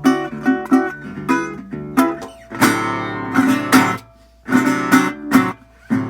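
1932 National Triolian single-cone resonator guitar being played: plucked notes and strummed chords in short phrases, with brief breaks where the strings are stopped.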